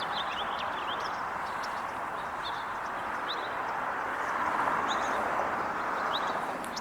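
Small birds chirping, short scattered high chirps every second or so, over a steady background hiss.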